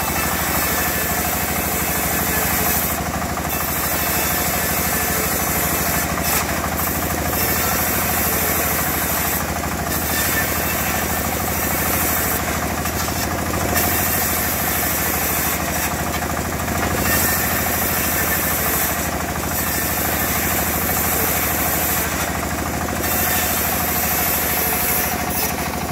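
Engine running steadily at idle, an even mechanical drone with no revving or cutting.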